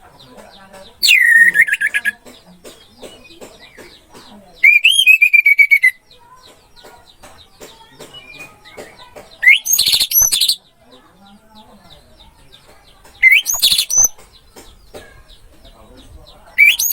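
Orange-headed thrush singing: short loud phrases of fast whistled notes that rise and fall, repeated about every four seconds. Between the phrases there is faint chirping from other birds.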